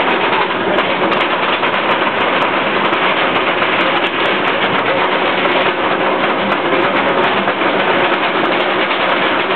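Roller coaster train climbing a chain lift hill: a steady, loud clatter from the lift chain and rails.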